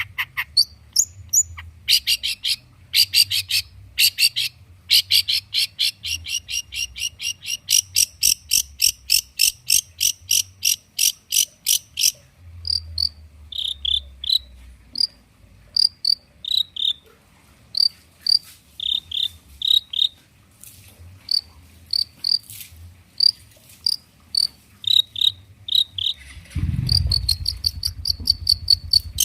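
Long-tailed shrike (cendet) singing: a fast run of even, high chirping notes about ten a second, then spaced pairs of sharp chirps. A low rumble comes in near the end.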